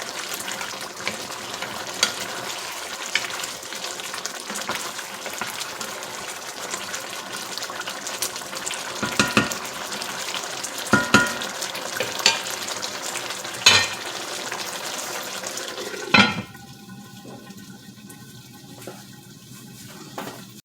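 Lamb sizzling as it fries in its own juices in a pot, with a utensil knocking against the pot several times as it is stirred. The sizzle drops much quieter about sixteen seconds in.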